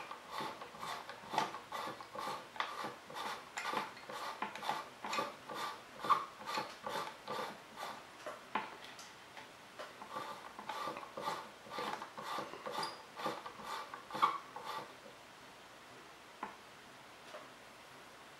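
Steady clicking, about three a second, as the rod is hand-turned to wind thread onto the blank for the finishing wrap. It stops about 15 seconds in.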